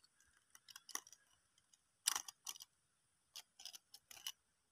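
Clicks and crackles of a clear plastic tube package as a soft rubber frog lure is handled and worked out of it, in short scattered bursts with a louder cluster about two seconds in.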